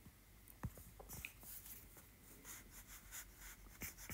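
Stylus tip tapping and stroking on an iPad's glass screen while drawing: faint quick taps, then short scratchy strokes from about halfway in.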